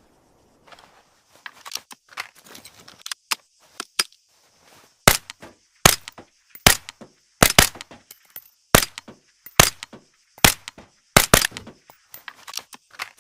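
High Standard Model HD .22 semi-automatic pistol firing about ten single shots at an unhurried, slightly uneven pace, a couple of them in quick pairs, after a few seconds of lighter clicking. A steady high hiss runs underneath.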